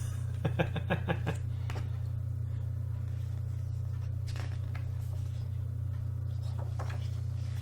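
A steady low background hum, with a few faint soft rustles, typical of pages of a sketchbook being turned, spaced a couple of seconds apart.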